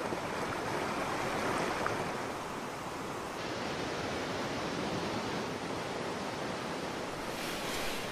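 Steady rush of white-water river rapids, an even hiss of running water that turns a little duller about three seconds in.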